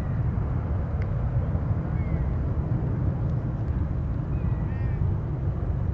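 Steady low rumble of a Boeing 747-8's jet engines, with a few faint bird chirps over it about two and five seconds in.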